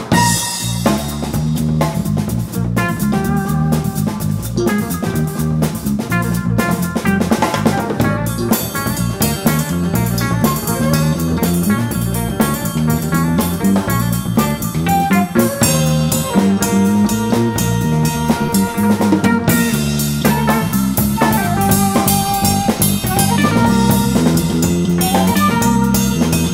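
Live jazz-funk band playing: drum kit with bass drum and rimshot strokes over a busy electric bass line, with guitar.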